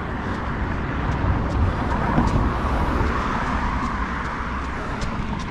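Steady noise of road traffic going by.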